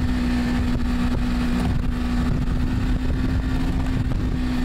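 A vehicle engine running at a steady pitch, with wind noise on the microphone.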